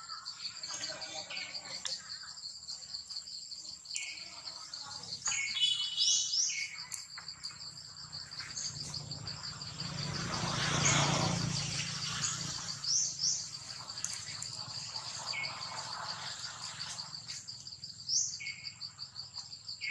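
Insects trilling steadily in a high, rapidly pulsing drone, with short rising bird chirps scattered throughout. A broad rushing swell rises and fades a little after the halfway point.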